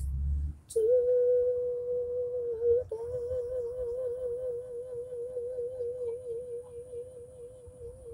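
A solo singing voice holds one long note with no accompaniment. It is steady at first, then from about three seconds in it takes on a wide, regular vibrato and fades out near the end.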